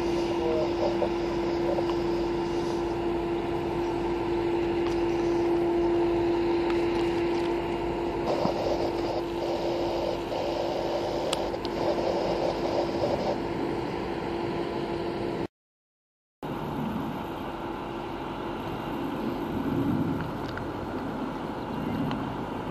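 Steady drone of a boat's engine with a constant hum. It cuts out suddenly for about a second two-thirds of the way through, then comes back as a lower, rougher rumble.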